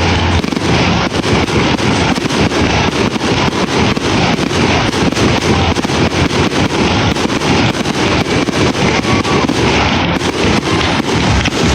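Aerial fireworks going off in a dense, continuous barrage of rapid bangs, the packed volley of a display's grand finale.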